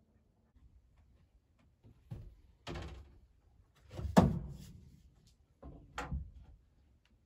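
A few wooden knocks and thunks, with a short scrape, as a spirit level and boards are handled against wooden nesting boxes. The loudest thunk comes about four seconds in.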